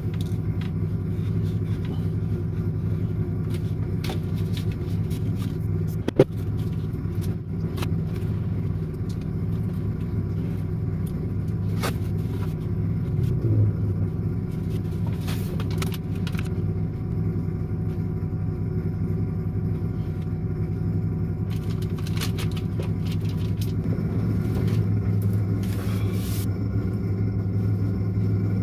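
Steady low engine hum, with scattered clicks and knocks from knife, bread and plate on the counter; the sharpest click comes about six seconds in.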